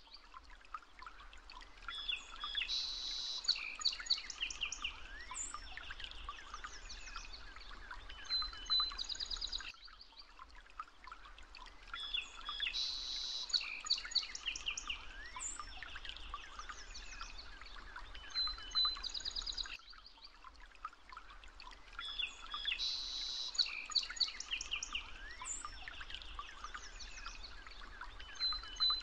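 Birdsong: several birds chirping, trilling and whistling. The same recording repeats about every ten seconds as a loop.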